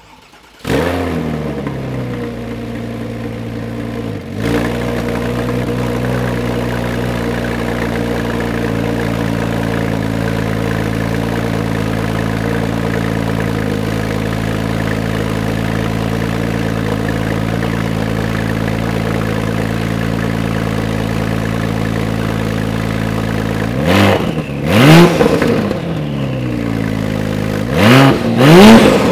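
A Porsche 996 Turbo S's twin-turbo flat-six, breathing through a Soul Performance near-straight-pipe exhaust, fires up about half a second in and settles into a steady idle. Near the end it is blipped twice, each rev rising and falling quickly.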